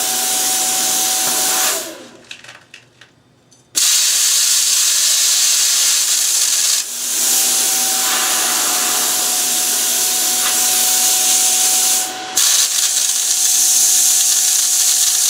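Plasma cutter cutting through a steel pulley: a loud, steady hiss with a thin steady whine. It stops about two seconds in, starts again about two seconds later, and breaks off briefly twice more.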